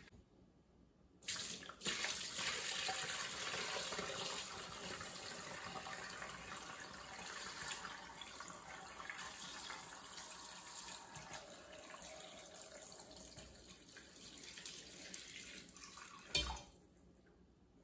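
Turkey stock poured from a stainless steel stockpot through a wire-mesh strainer into a bowl. The stream starts about a second in and slowly thins out, with a single knock near the end.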